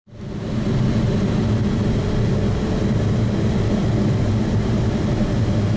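Steady low drone of a moving car's engine and road noise, heard from inside the car, which starts abruptly and then holds an even level.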